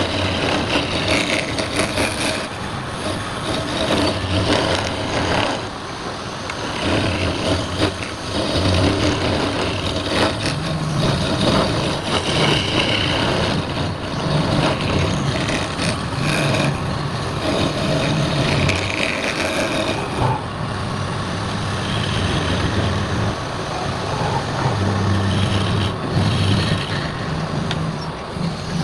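Wood lathe running with a turning tool cutting the spinning wood: a steady mechanical noise with a low hum that shifts in pitch every second or two.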